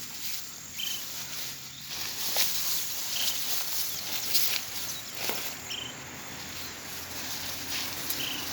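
Insects chirring steadily in the brush, with scattered rustles and snaps of vegetation being handled. A short high call repeats about every two and a half seconds.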